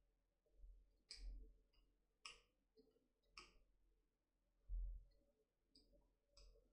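Faint scattered clicks and soft rustles as wet makeup brushes are pressed and patted inside a terry towel on a counter, their handles knocking lightly, with one dull low thump about five seconds in.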